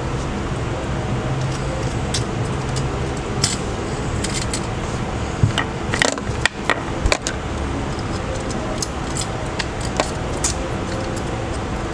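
Scattered small clicks and taps of a smartphone's parts and tools being handled during repair, several close together about halfway through, over a steady background hiss.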